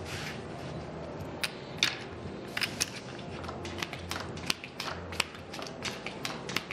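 Casino chips clicking together as they are handled on the table: sharp, irregular clicks, several a second, starting about a second and a half in, with the soft slide of playing cards being gathered and dealt on the felt.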